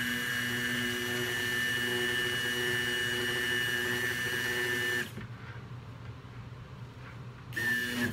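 Handheld stick blender running steadily with a high whine, mixing soap oils with clays in a plastic bucket. It cuts off suddenly about five seconds in, then gives one short burst near the end.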